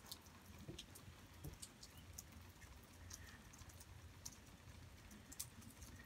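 Near silence with faint, scattered small clicks and scratches of a fingertip pushing wet sand across an enamel dish.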